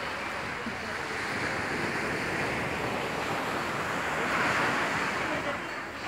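Small waves washing onto a sandy beach: a steady hiss of surf that swells once about four and a half seconds in.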